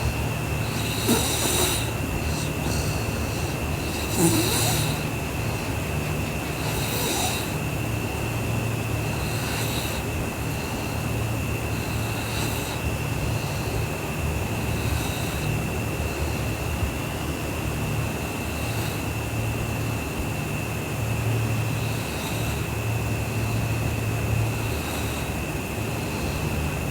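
A sleeping girl snoring, a low rasping snore with each breath about every two and a half to three seconds, the breaths more forceful in the first several seconds. A steady high-pitched whine runs underneath.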